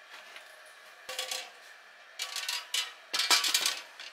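Aluminium mess tin with a wire rack inside being handled and set down: three bursts of light metallic clattering and rattling, the last the loudest.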